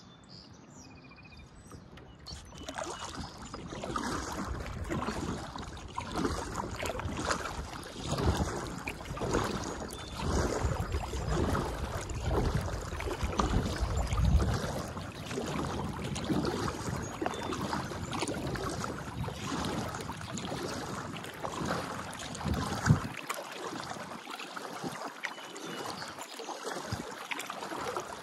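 Kayak paddle strokes in the water, starting about two seconds in and repeating every second or two with an uneven swish and splash.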